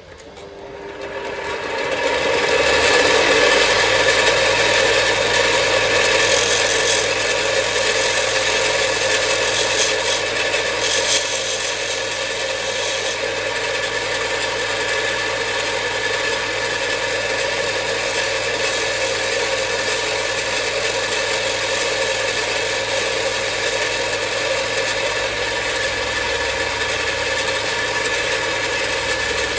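Parkside bench grinder with belt sander switched on, its motor spinning up over about two seconds and then running steadily with a hum and whine. A small workpiece is being ground against it, adding a rasping noise that is loudest in the first half.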